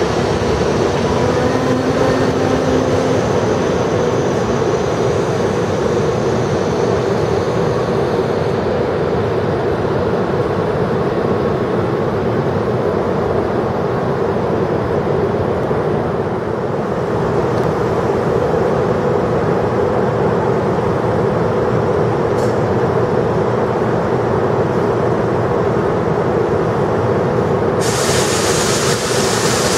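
Steady rushing noise and hum of a train standing at a station platform. A loud hiss comes in suddenly near the end.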